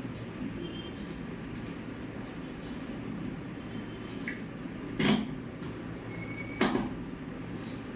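Two loud knocks about a second and a half apart, with a few lighter clicks, over a steady low hum.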